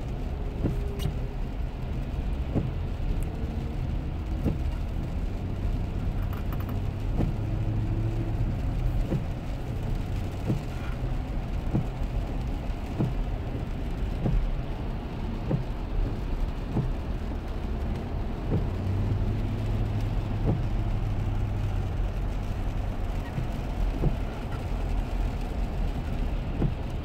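Steady low road rumble inside the cabin of a 2007 Lexus LX 470 driving on a wet highway, from the engine and new Michelin Defender all-season tyres on wet pavement. Soft knocks come about once a second.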